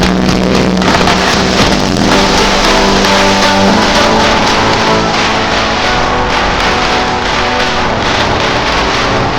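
Background music with held notes, over the steady running noise of a car on the road.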